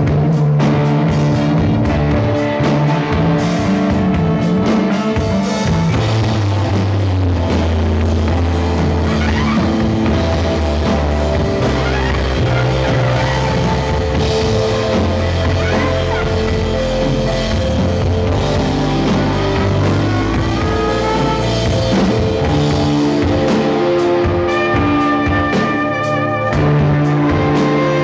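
Live rock band playing: electric bass guitar, drum kit and a trumpet played into a microphone, with long held notes over a heavy bass line.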